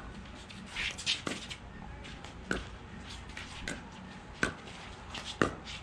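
Pickleball paddles striking a plastic pickleball back and forth in a rally: several sharp pops, roughly a second apart.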